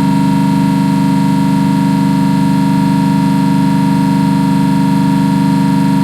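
Trane CRHR500 semi-hermetic piston refrigeration compressor running steadily on a test run: a loud, even hum with a steady higher tone above it.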